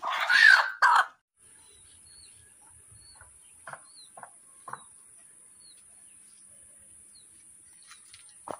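A desi rooster's loud squawk in the first second, then faint bird chirps and a few short clucking calls over a steady high hiss.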